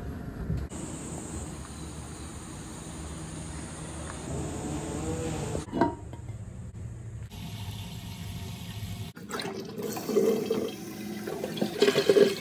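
Toilet water running: a flush and the tank refilling through its fill valve, heard as several short clips cut together. The water noise is louder and more uneven in the last three seconds.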